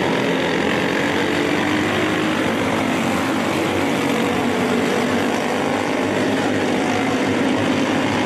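A pack of junior sprint cars racing, several small engines running together in a steady drone.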